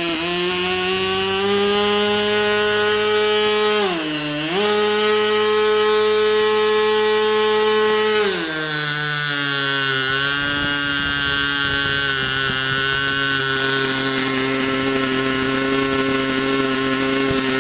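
MVVS 49 8cc two-stroke glow engine with a tuned pipe running fast on a test stand, set slightly rich. Its speed dips briefly about four seconds in, then drops to a lower steady speed about eight and a half seconds in.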